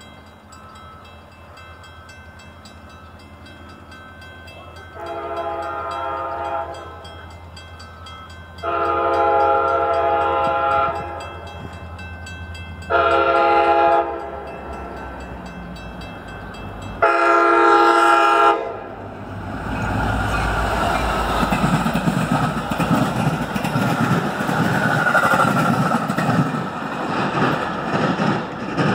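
Metra commuter train's locomotive horn sounding the grade-crossing signal, two long blasts, a short one and a long one, over a ringing crossing bell. The train then passes close by with a rumble and wheel clatter.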